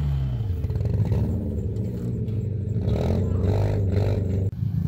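The Metro's small engine running unevenly, with irregular knocks over its low drone. The owner writes the engine off as done.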